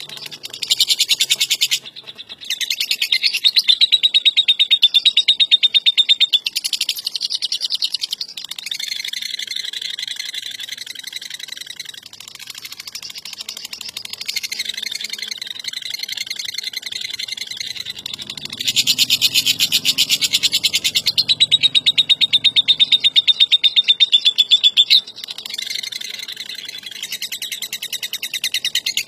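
Lovebird ngekek: long, very rapid rattling trills, high-pitched, in several unbroken bouts. The loudest bouts come about a second in and again about 19 s in, and a thin steady whistle runs through parts of them.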